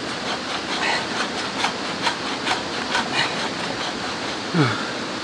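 Quick repeated strokes of a hand tool working wood, about two or three a second, over a steady background rush.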